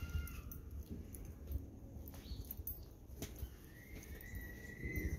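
A small dog whining while it is held: a short, arching whimper at the start and a longer, steady high whine near the end, with knocks and rustling from handling.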